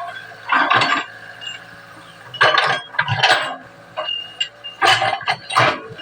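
Excavator working, its engine running steadily under a series of clattering metallic knocks and rattles, about five in six seconds.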